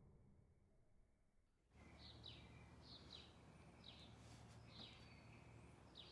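About a second and a half of near silence. Then faint outdoor background noise comes in, with a small bird giving short, high, downward chirps over and over.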